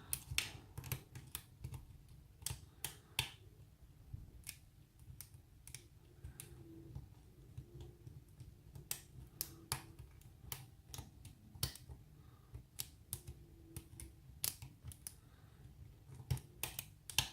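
Hook pick working the pins of a spool-pinned pin tumbler lock under tension: irregular small metallic clicks, a few a second, as pins are lifted and set.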